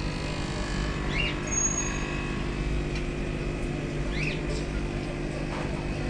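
Steady low motor hum, with two short high chirps, about a second in and again about four seconds in.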